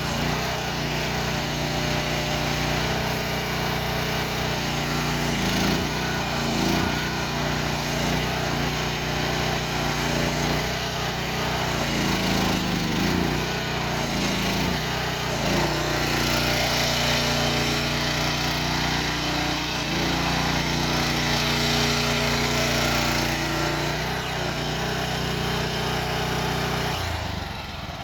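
Small gasoline engine of a MIVA VA13 mini excavator running, its pitch repeatedly rising and falling. Shortly before the end the engine note drops and the sound quietens.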